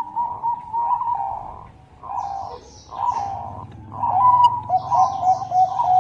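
Zebra dove (perkutut, Bangkok song line) cooing its quick, staccato song in several phrases broken by short pauses, ending in a faster run of short notes. Faint high chirps sound behind it.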